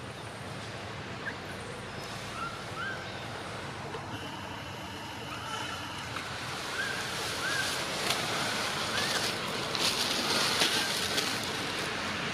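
Short, arched, squeaky calls from the macaque troop, repeating about once a second over a steady outdoor hiss, with louder rustling and crackling in the second half.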